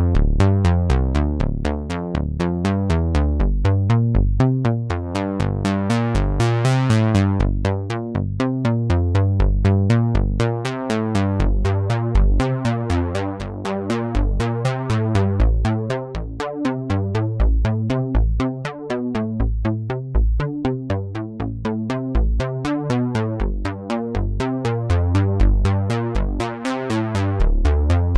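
Electronic music of u-he software synthesizers run through Arturia's Chorus Jun-6, an emulation of the Roland Juno chorus, over a drum-machine beat with fast, even ticking percussion and a heavy bass line.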